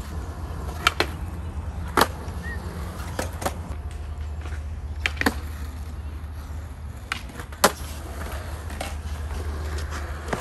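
Skateboard rolling on concrete with a steady low rumble from its wheels. About a dozen sharp clacks come from the board striking the ground as tricks are tried and landed, the loudest about three quarters of the way through.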